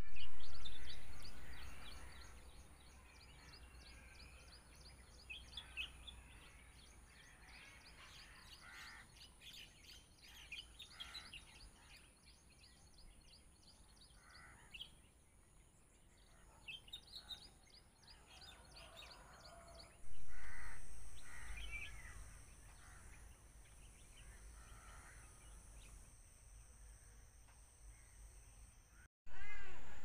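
Birds calling, among them crows cawing, with short chirps scattered throughout over a faint steady high-pitched hum. A low rumble comes in loudly at the very start and again about twenty seconds in, each time fading over a couple of seconds.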